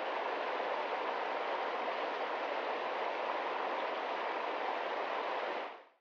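Mountain stream rushing over rocks: a steady, even water rush that fades out just before the end.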